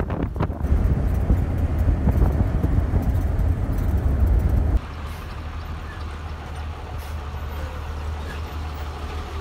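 A bus in motion: the steady low rumble of its engine and road noise, heard from its open window. About five seconds in, the sound cuts suddenly to a quieter, steady rumble.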